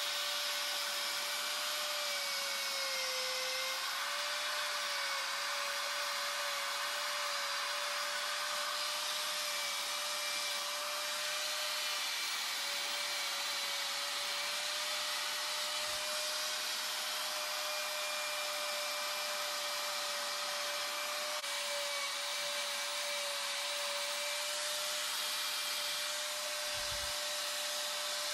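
Electric die grinder with a coarse carbide burr bit grinding into wood, a steady high whine over a hiss of cutting. The whine's pitch sags briefly a few times as the burr is pressed into the wood.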